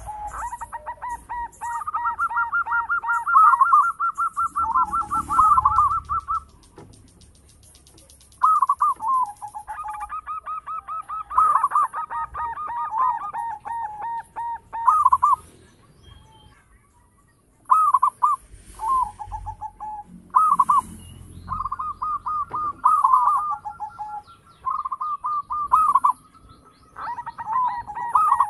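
Zebra doves (perkutut) cooing in long phrases of rapid, evenly repeated soft notes, one voice higher and one lower, often overlapping. The cooing pauses twice, briefly, about a third and about halfway through.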